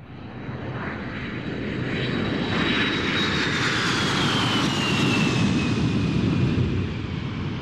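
Airplane fly-by sound effect: engine noise swells over the first two seconds and holds. A high whine slowly falls in pitch as the plane passes.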